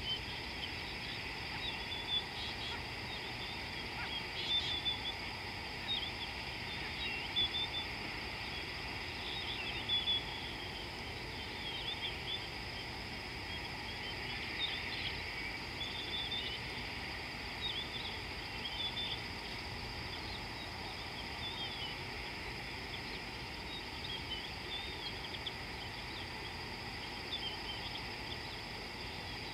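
Wild birds calling in short, scattered chirps and twitters over a steady high-pitched hum and a low background hiss.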